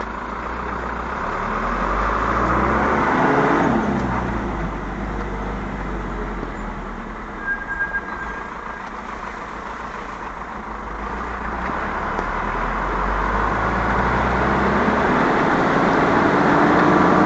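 Motor vehicle engine running, its sound swelling and changing pitch: loudest about three seconds in, then rising again over the last few seconds, over a steady low rumble.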